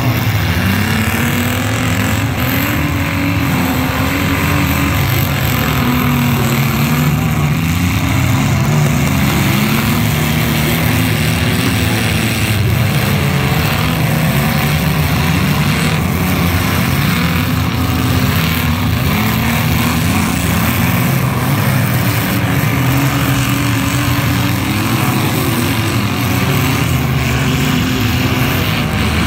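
Several compact-car demolition derby engines revving hard together, their pitches rising and falling as the cars push and ram each other, with a few crunches of collisions.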